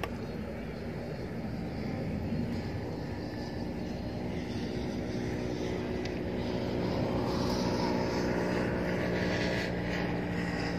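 Steady engine drone that grows stronger through the second half, over wind noise rumbling on the microphone.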